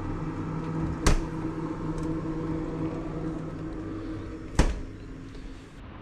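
A refrigerator door shut by hand with a sharp thud about a second in, then a second sharp thud near the end, over a steady low hum.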